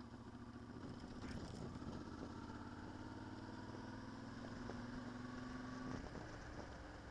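Motorcycle engine running at steady revs while riding, its note creeping slightly higher and then easing off about six seconds in.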